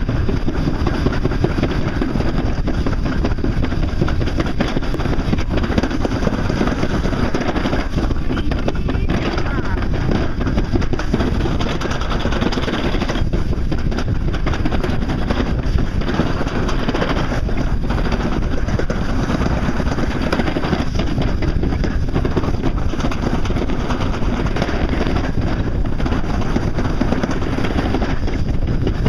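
Summer toboggan sled running fast down a stainless-steel trough track: a loud, steady rumble of the sled on the metal channel, mixed with wind on the microphone.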